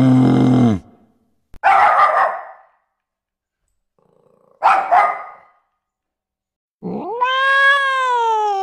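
The end of a cow's low moo, then a dog's gruff barks: one bark, and a double bark about three seconds later. Near the end a cat gives a long meow that rises and then falls in pitch.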